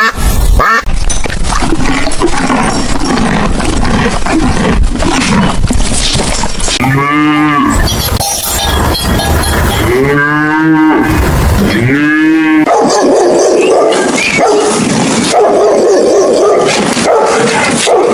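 Cattle mooing: three drawn-out moos, about seven, ten and twelve seconds in, over continuous noisy background sound.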